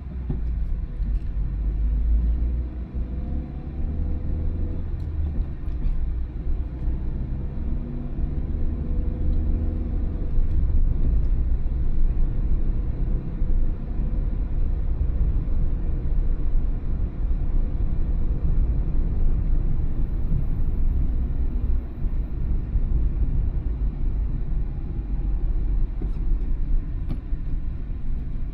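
Car being driven, a steady low engine and road rumble. The engine note rises a few times in the first ten seconds as the car gathers speed.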